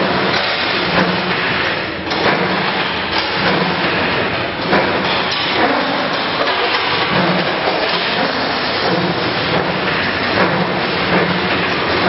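CNC wire bending machine running and feeding steel wire through its bending head: a steady loud mechanical clatter, with a low motor hum that comes and goes every second or two and scattered sharp clicks of metal on metal.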